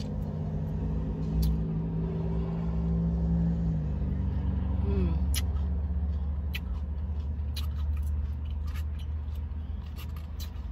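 Motor vehicle engine rumble heard from inside a car, with a steady drone that drops in pitch about four seconds in. A few light clicks of a spoon against a paper food cup.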